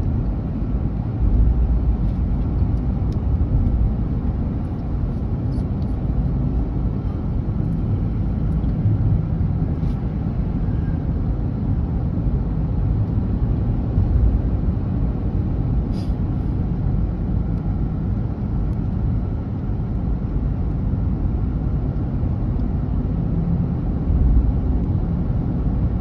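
Car driving along a paved highway, heard from inside the cabin: a steady low rumble of road and engine noise.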